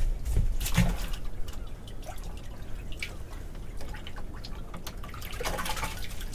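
Water dripping and trickling, with scattered small knocks over a steady low rumble.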